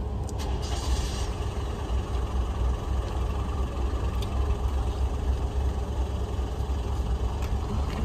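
Car engine idling, a steady low rumble heard from inside the cabin.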